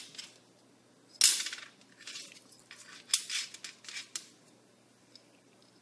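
A few short, sharp clicks and rattles of handling: a metal bottle cap and plastic aroma beads being moved about on a metal baking sheet. The loudest click comes about a second in; the rest are scattered over the next three seconds.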